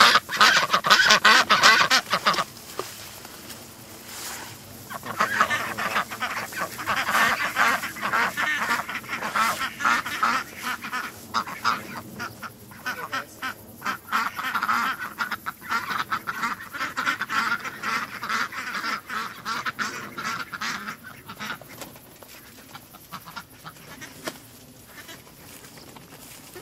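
A flock of domestic ducks quacking in a loud overlapping chorus, the clamour of ducks waiting to be fed. It is loudest in the first couple of seconds, builds again for a long stretch after about five seconds, and thins out near the end.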